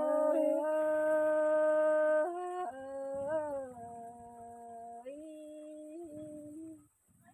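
One voice singing a Thái folk song, holding long level notes on an 'ơi' and stepping up and down between pitches; it breaks off near the end.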